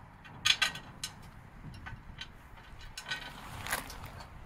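Sharp metallic clicks and clinks of a motorcycle skid plate and its screws being handled and fitted by hand against the frame: a quick cluster of clicks about half a second in, then a few more around three seconds in.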